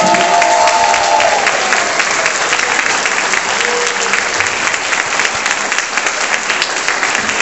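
Audience applauding steadily, a dense mass of many hands clapping, with a held note at the start that ends about a second in.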